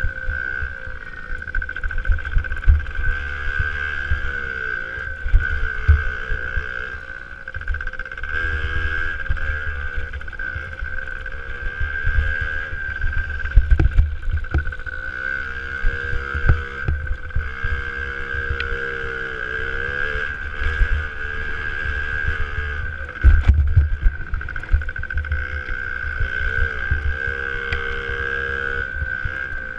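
65cc two-stroke motocross bike engine heard from an onboard camera, revving up and dropping off again and again as the rider throttles through corners and over jumps. Heavy rumble and occasional knocks from wind and bumps on the mount lie under it.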